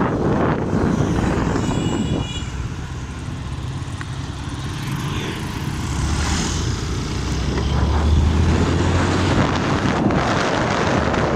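Wind rushing over the microphone on a moving motorcycle, with road and traffic noise. A low engine drone swells in the second half as a truck passes close alongside.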